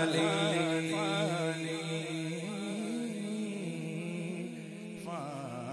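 Sufi devotional singing: a male voice holds long, wavering notes over a steady drone, with a new phrase starting near the end.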